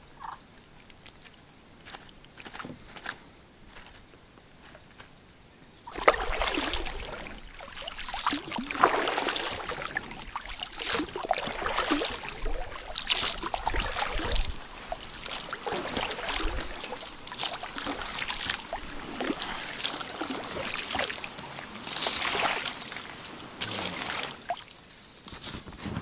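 Water sloshing and splashing around an inflatable packraft, in irregular bursts that start about six seconds in after a quieter stretch with a few faint ticks.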